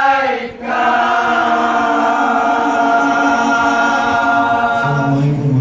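A group of boys and young men singing together, unaccompanied, holding one long note after a brief break about half a second in. A lower man's voice comes in near the end.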